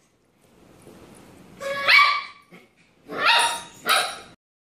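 A young puppy barking in high yips: one bark about two seconds in, then two more in quick succession near the end.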